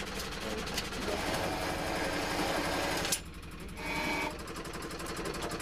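Road core-drilling rig and its machinery running steadily with a rapid mechanical rattle. About three seconds in, the sound drops abruptly and carries on quieter.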